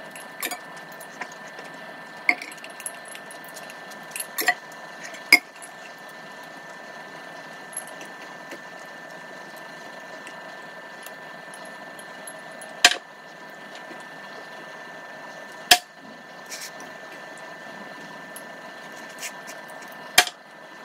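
Eating sounds: quiet chewing of stir-fried instant noodles, broken by a handful of sharp clicks and knocks of wooden chopsticks against a wooden board and a small bowl, over a steady background hiss.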